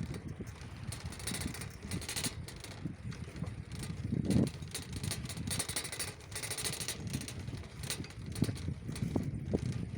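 Riding a bicycle along a rough riverside path: wind buffeting the microphone as a low rumble, with the bike's small rattles and clicks over bumps. A louder bump comes about four seconds in.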